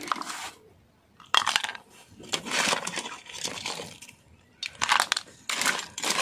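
Ladle scooping cooked crabs in coconut-milk sauce out of a steel pot. The shells clatter and crunch against the metal in several short bursts with pauses between them.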